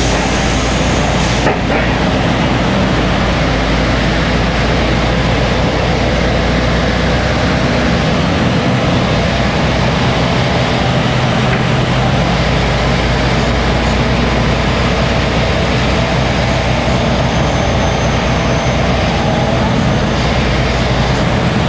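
Sentosa Beach Tram, an open-sided articulated bus, on the move: a steady low engine drone with road and wind noise, heard from aboard the open rear car. There is a brief hiss near the start.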